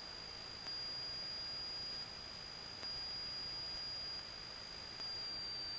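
Steady high-pitched electronic whine over faint hiss in the headset intercom audio, with the hiss stepping louder and softer a few times; the aircraft engine is barely heard through it.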